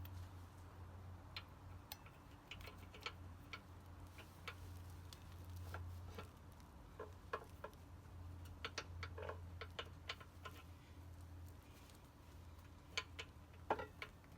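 Irregular light metallic clicks and taps from handling tools and wheel parts, over a low steady hum, with the sharpest clicks near the end.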